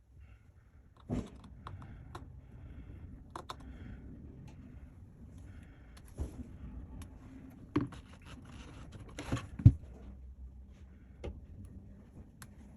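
Small clicks, taps and light scrapes of hand tools and phone parts being handled during an iPhone teardown, with a sharper knock near ten seconds in.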